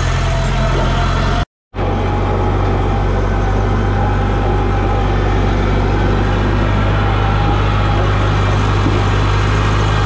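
Engine of an open-cab work machine running steadily while it drives, heard from the seat as a loud, even low drone. The sound drops out for a moment about one and a half seconds in, then comes back at a slightly different pitch.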